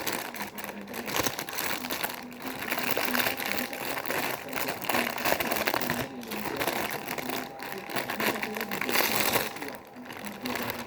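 Packaging of an in-ear earphone set rustling and crinkling as it is handled and opened, a dense run of irregular crackles, with faint speech behind it.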